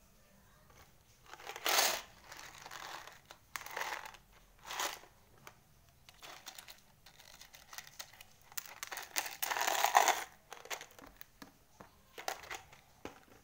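Crinkling and rustling from hands handling foam craft letters and sticking them onto a popsicle-stick house, in several short bouts; the loudest come about two seconds in and again around nine to ten seconds in.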